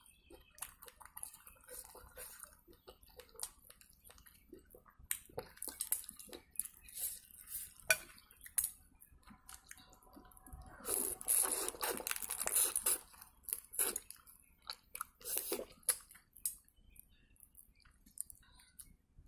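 Close-miked eating sounds: chewing shrimp and instant noodles, with repeated sharp clicks of chopsticks against a ceramic bowl. A louder, denser stretch of noise comes about eleven seconds in and lasts a couple of seconds.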